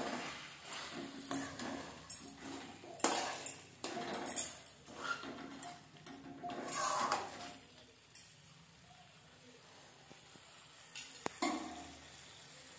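A metal spoon scraping and clinking against a metal kadai as spiced chicken pieces are stirred, in quick irregular strokes. The stirring mostly stops after about eight seconds, leaving a few sharp clinks near the end.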